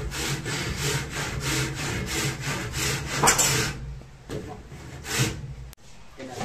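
Hand saw cutting through wood in quick back-and-forth strokes, about three to four a second, stopping after about four seconds, then two more single strokes.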